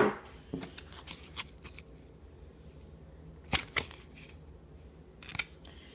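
Handling noise from small objects and packaging being moved about: scattered light clicks and rustles, with two sharper clicks in quick succession a bit past halfway and a couple more near the end.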